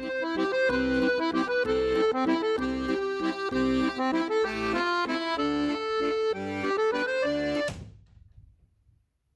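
Accordion music: a quick melody of short notes over a pulsing bass line, cutting off abruptly about eight seconds in.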